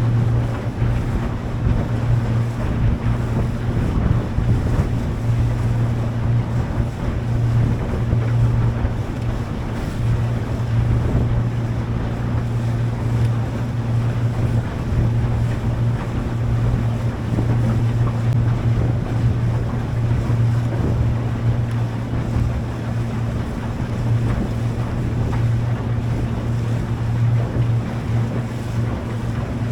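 A boat's engine running steadily with a constant low hum, under wind noise on the microphone and the wash of water.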